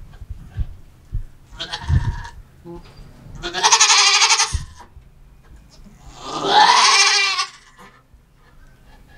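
Goat doe in labor bleating loudly three times as she strains to push, each cry wavering. The first cry is shorter and quieter; the last bends in pitch.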